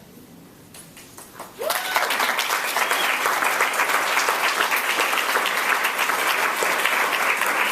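Audience applauding, starting suddenly about a second and a half in and holding steady.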